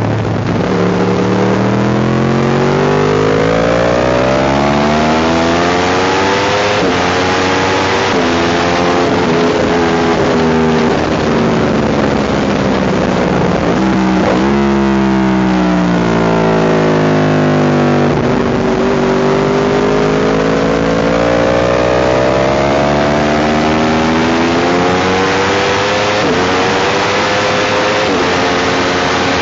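Sport motorcycle engine heard from on board at track speed, revs climbing and dropping again and again as the rider shifts gears. There is a quick run of rev changes about halfway through, typical of braking and downshifting for a corner. Wind rush runs underneath.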